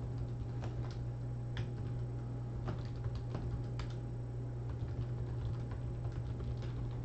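A few faint, scattered light clicks, irregularly spaced, over a steady low hum.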